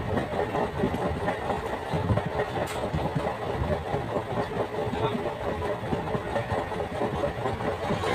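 An engine running steadily with a rough, even sound.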